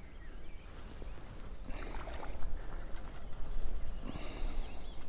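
Insects chirping in a steady high-pitched trill, with a few soft rustles about two seconds in and again near four seconds.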